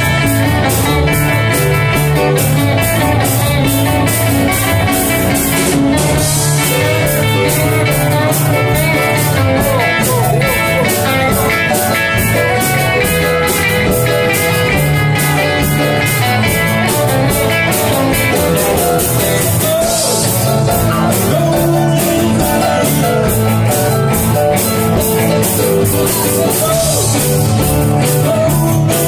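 Live band playing with electric guitar over a steady drum-kit beat, loud and unbroken.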